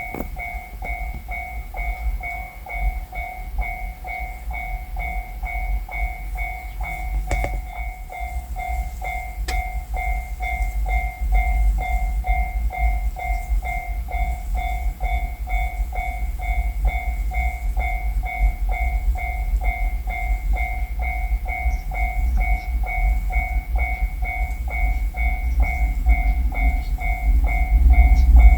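Japanese railway level-crossing warning bell ringing, an even two-tone electronic "kan-kan" about twice a second, over a low rumble that grows louder near the end.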